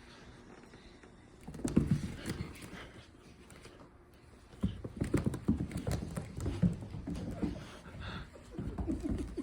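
A cat's paws batting and tapping in quick runs of light knocks and scuffles: a short flurry about two seconds in, a longer one from about five to seven and a half seconds, and a few more near the end.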